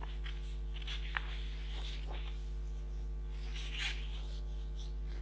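Sheets of paper rustling in short bursts as pages are handled and turned, the loudest rustle near the end. There is a small click about a second in, over a steady electrical hum.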